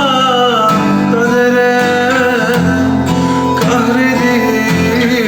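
Music: a Turkish song, a voice singing long, wavering held notes over guitar accompaniment.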